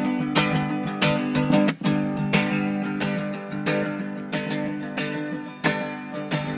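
Acoustic guitar strummed in a steady rhythm, an instrumental passage of a folk song with no voice. There is a brief gap between chords about two seconds in.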